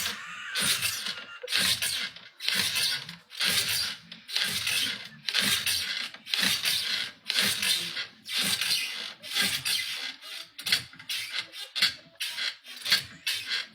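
Bed frame creaking and squeaking in a steady rhythm as people have sex on it, about one creak a second, quickening near the end.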